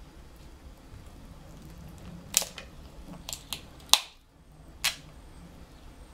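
Cooked snow crab legs being snapped and cracked apart by hand, their shells cracking cleanly. About five sharp cracks come in quick succession from two and a half to five seconds in, the loudest about four seconds in.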